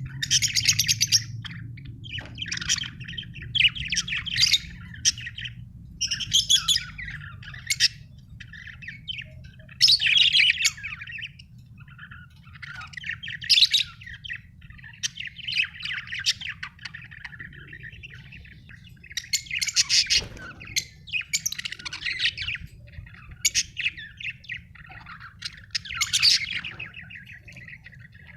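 Budgerigar chirping and warbling in quick bursts of chatter, one burst every second or two, with a faint steady low hum underneath.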